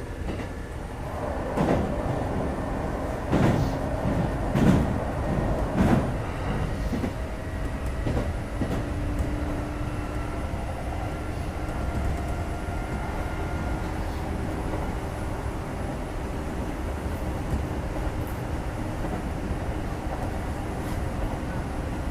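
Kintetsu 2430-series electric train heard from inside the car while running: a steady low rumble of wheels on rails. Several loud clacks over rail joints come in the first six seconds or so, and a faint steady whine follows.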